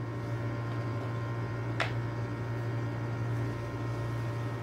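Steady low hum with a single light click about two seconds in.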